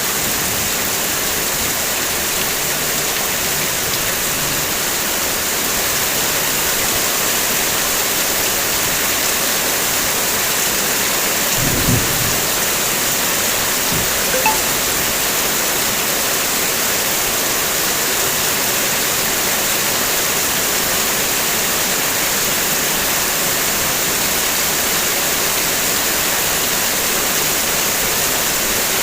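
Heavy rain falling steadily on a car's roof and body, a dense even hiss. Two brief low thumps stand out near the middle.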